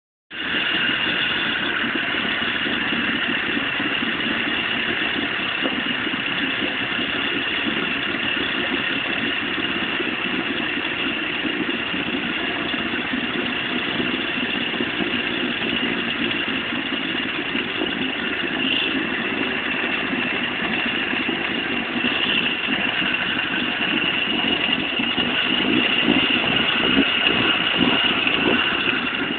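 Veterok-8 two-stroke outboard motor running steadily, getting a little louder in the last few seconds. The engine has a knock that the owner is investigating.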